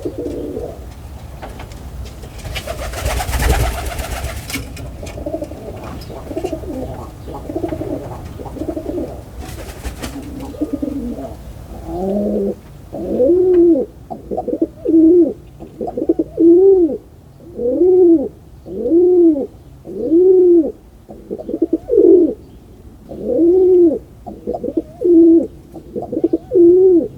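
Pigeons cooing. At first it is a low, overlapping jumble of coos with a brief noisy rustle about three seconds in. From about halfway it becomes a regular run of about eleven coos, each rising and falling in pitch, one every second or so.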